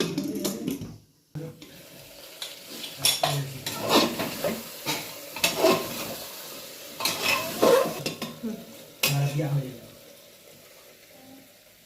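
Metal spoon stirring and scraping against a cooking pot, in irregular strokes, while the curry sizzles in the oil.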